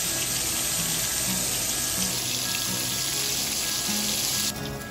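Flour-coated cube steaks sizzling in hot grease in a frying pan, a steady dense hiss that cuts off suddenly near the end, over background music.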